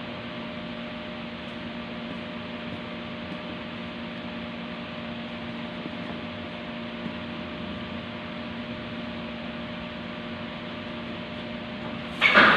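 A steady machine hum with a few fixed tones. About twelve seconds in, an electric arc welder strikes up on a steel beam with a loud crackling hiss.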